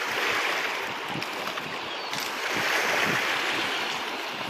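Small waves washing over a pebble beach, the hiss swelling twice, with wind rumbling on the microphone.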